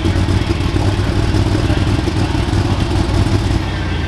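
Super stock pulling tractor's engine running steadily at low speed as the tractor sits stopped with the sled behind it after its pull.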